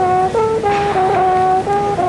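French hunting horn (trompe de chasse) playing a fanfare: a loud brass melody of short held notes that step up and down in pitch.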